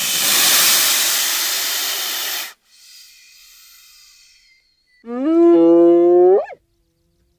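Animal sounds: a loud breathy hiss lasting about two and a half seconds, then after a pause a loud pitched call that rises in pitch and lasts about a second and a half.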